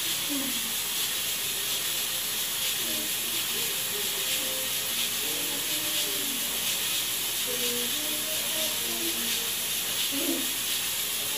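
Steady hiss of background noise, even throughout, with faint indistinct sounds beneath it.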